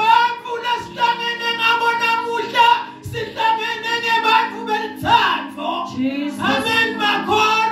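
Singing: voices holding long notes over steady sustained chords of accompanying music.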